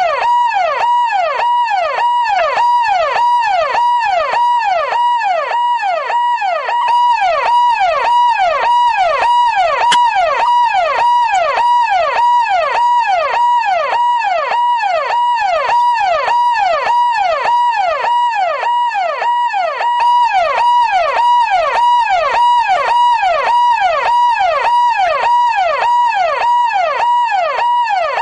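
Traffic police siren sounding continuously in a fast yelp: a high tone that dips and swoops back up about twice a second, repeating evenly.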